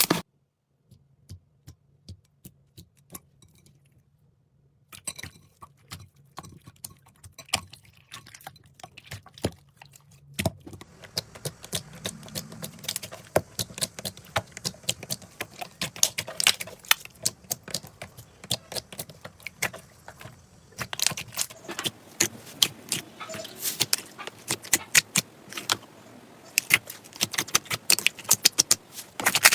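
Slime being squeezed and worked by hand, giving a stream of small clicks, pops and crackles. They are sparse at first, grow denser about five seconds in, and change texture again about ten and twenty seconds in.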